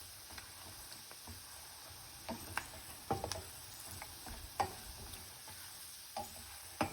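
Cashew nuts and curry leaves frying gently in ghee, a faint steady sizzle, with a spoon stirring and clicking against the pan at irregular moments, the loudest click near the end.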